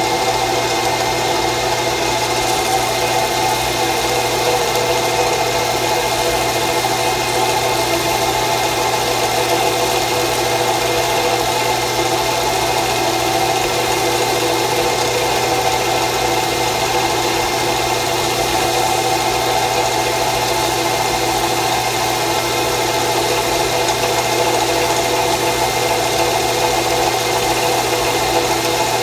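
Drill press motor running at a steady speed, a constant hum with a few held tones, spinning a homemade wooden burnishing wheel. The waxed edge of a leather belt is held against the wheel to burnish the wax into it.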